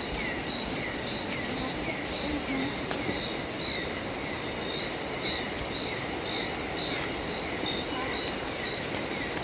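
Tropical forest at night: a steady rushing hiss, with an animal calling over and over in short falling chirps, about two a second.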